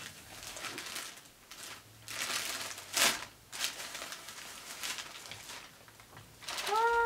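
Plastic mailer bag crinkling and rustling as it is handled and pulled open, with a sharper crackle of the plastic about three seconds in. Near the end comes a short pitched vocal sound, rising slightly and then held.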